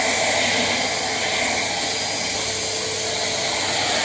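Agaro Icon 1600-watt bagless cyclonic vacuum cleaner running steadily, its floor brush being pushed over a tiled floor.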